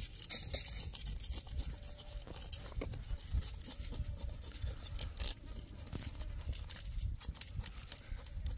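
A knife scraping and cutting at a himri fish as it is cleaned: irregular scratchy strokes over a low rumble.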